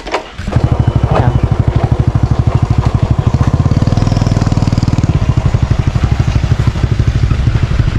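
A motorbike engine running close by with a rapid, even putter, coming in suddenly about half a second in and slightly louder in the middle.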